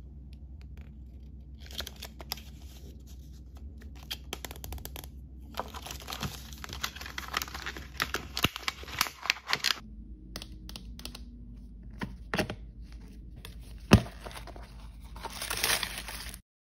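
Cardboard blind box being torn open by hand, with bouts of crackly tearing and crinkling and one sharp snap near the end. It is followed by a plastic bag crinkling as it is pulled open, which cuts off abruptly.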